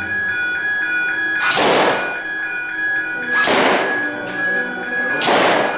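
Background music: sustained electronic chords, with a whooshing sweep that falls in pitch about every two seconds.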